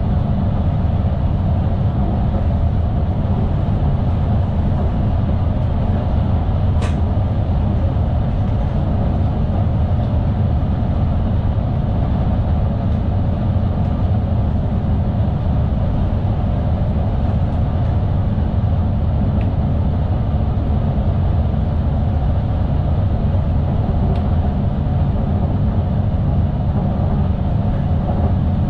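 Steady rumble of an SNG (Sprinter New Generation) electric train running on the line, heard from inside the driver's cab, with a single sharp click about seven seconds in.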